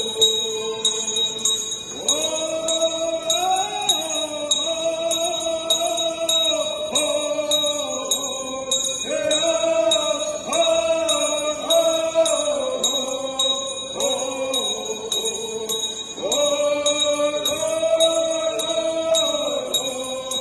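Group of men singing a prayer blessing song in unison, in long held phrases that step up and down in pitch. A bell rings in a steady beat of about two strokes a second throughout.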